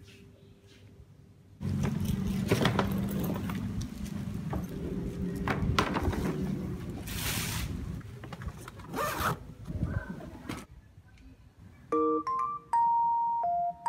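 Clear plastic wrapping on hard-shell suitcases rustling and crinkling as the cases are handled, for about nine seconds. Near the end a light melody of bell-like mallet notes begins.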